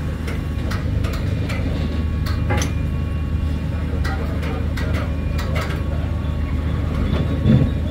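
An engine running steadily as a low drone, with scattered light clinks and taps from dismantling work and a louder low thump near the end.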